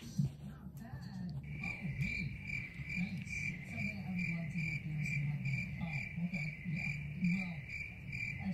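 Steady, rhythmic high-pitched chirping, about two chirps a second, starting about a second and a half in, over a faint wavering low sound.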